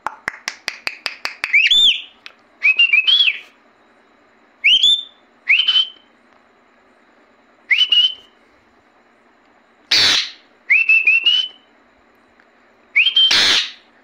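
Indian ringneck parakeet with a quick run of clicks at the start, then a string of short whistles, each rising and hooking over at the top. Two harsh screeches break in near the end.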